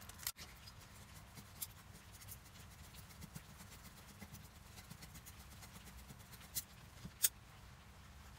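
Hatchet blade scraping and shaving thin slivers off a piece of kindling wood, faint soft rasps, with two sharp clicks near the end as wood is handled at the steel rocket stove.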